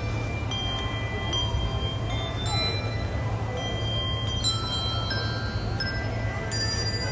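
A handbell ensemble ringing a Christmas carol: struck bell notes at several pitches, each ringing on and fading as new ones sound, over a steady low hum.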